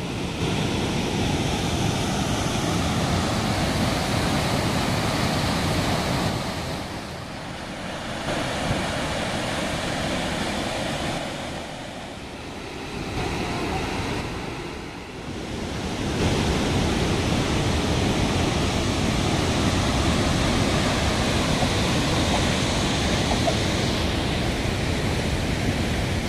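A large waterfall plunging into a gorge: a steady, dense rushing of falling water. It drops in level twice for a few seconds, about a quarter and about halfway in, then comes back at full strength.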